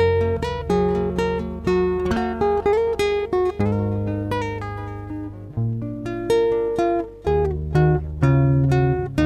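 Acoustic guitar music: plucked notes several to the second, each starting sharply and fading, over low bass notes.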